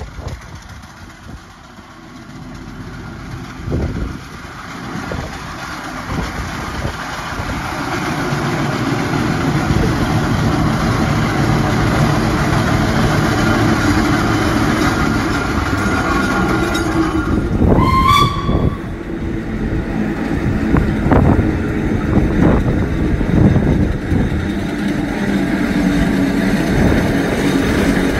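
Steam traction engine under way along a road, its exhaust beats growing steadily louder as it approaches, then running loud as it comes close. One short blast on its whistle sounds about two-thirds of the way through.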